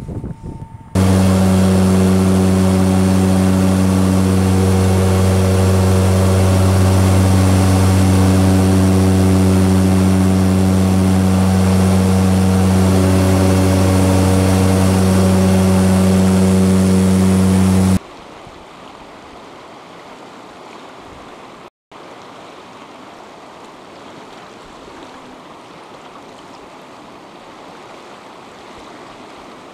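Loud, steady drone of an aircraft's engines heard inside the cabin in flight, a low hum made of several steady tones, which stops abruptly about two-thirds of the way through. It gives way to the much quieter, even rush of a fast-flowing river.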